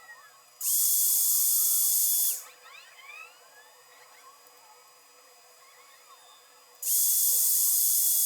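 Two bursts of high-pitched hissing from a workshop tool, each about two seconds long, with a steady whistle that slides up slightly as each burst starts.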